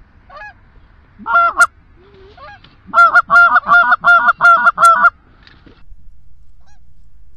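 Goose honking: a short burst about a second in, then a fast run of about eight loud honks, roughly four a second, between three and five seconds in, with fainter single honks before and after.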